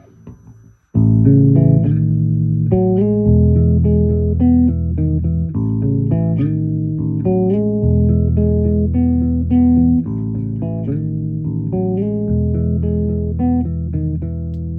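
Electric bass played through a Valeton Dapper Bass multi-effects pedal into a Fender Rumble 40 amp, starting about a second in: held low notes changing every couple of seconds, with a moving line of shorter, higher notes above them.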